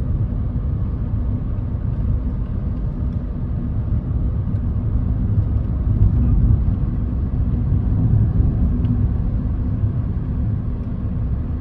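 Car driving along, giving a steady low rumble of road and engine noise.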